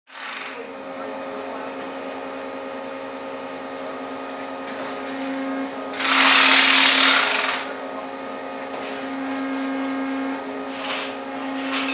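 Underground rock bolter running with a steady droning hum. A loud hissing rush comes in about six seconds in and lasts about a second and a half, with a shorter hiss near the end.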